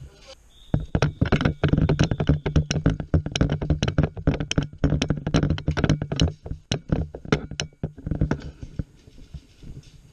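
Airsoft fire: a rapid, irregular run of sharp knocks lasting about seven seconds over a steady low hum, then dying away.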